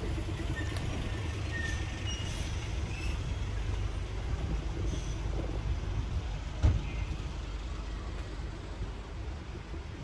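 Street traffic: a steady low rumble of passing vehicles, with a few short faint high tones early on and one sharp knock about two-thirds of the way through.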